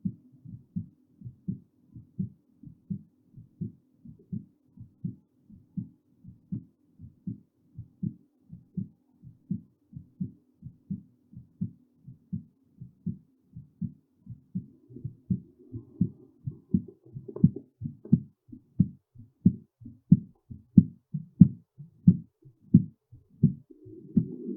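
Human heartbeat picked up on the chest: a regular 'lub-dub' of paired low thumps, with a faint steady hum under it in the first half. The beats get louder about fifteen seconds in.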